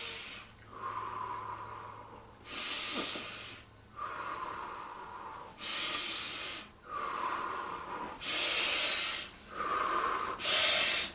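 A woman breathing deeply and audibly in a slow rhythm, about four in-and-out cycles, each breath a rush of air about a second long.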